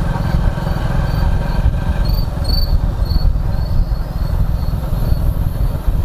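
Motorcycle engine running steadily while riding, a fast low pulsing rumble. Over it, crickets chirp in a regular run of high chirps.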